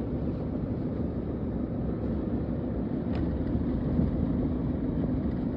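Steady rumble of a moving road vehicle: engine and road noise, with no clear changes.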